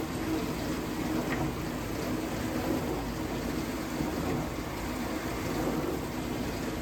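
Vintage dishwasher running mid-cycle: a steady pump-motor hum with water washing around inside the tub. The pump sounds like it could be restricted, with the water no longer hitting the tub at full force.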